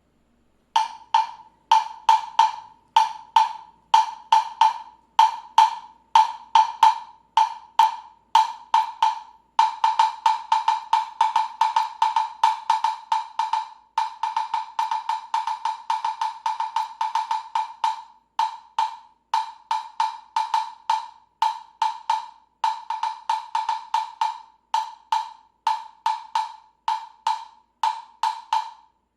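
Latin Percussion LP1207 medium-pitch Jam Block, a synthetic wood block, struck in rhythmic patterns: sharp, short knocks, each ringing at one pitch. The playing turns faster and denser for several seconds in the middle, then returns to the spaced-out pattern.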